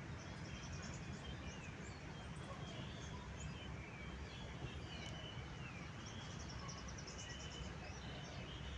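Small birds chirping and twittering in short calls and quick trills over a steady low background rumble.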